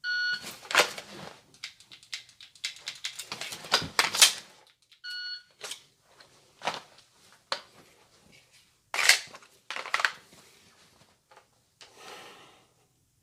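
A shot timer's electronic start beep, then a run of dry-fire pistol trigger clicks, handling clacks and footsteps, with a second short beep about five seconds in and two louder clacks near the end.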